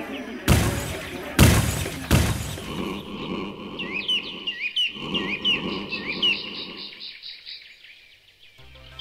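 Logo-intro sound effects: three loud hits in the first two seconds or so, then small birds chirping in short rising calls over a rough rustling noise. Music comes in near the end.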